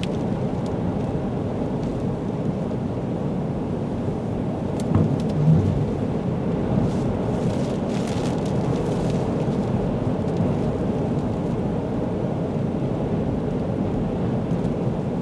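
Storm-force wind and heavy surf from a windstorm on a lakeshore: a steady loud low rumble, with a couple of heavier thuds about five seconds in.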